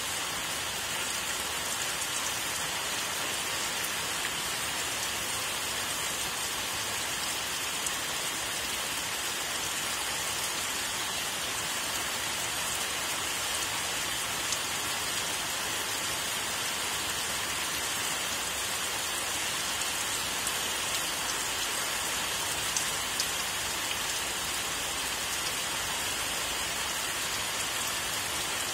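Steady rain falling, a constant even hiss with the odd louder drop tick.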